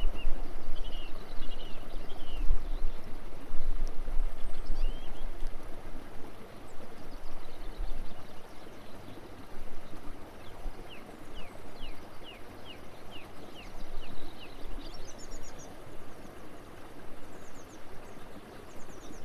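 Small songbirds chirping on and off, with one bird giving a quick run of about ten notes a little past halfway. Behind them is a steady background hiss, and a low rumble on the microphone during the first half.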